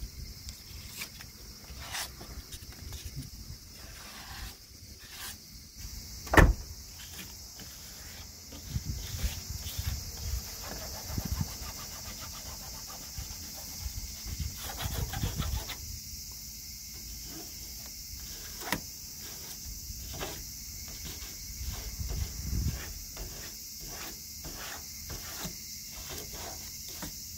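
Masking tape being peeled off a freshly painted car body panel, in short crackling pulls with one sharper snap about six seconds in. Behind it, a steady high insect buzz.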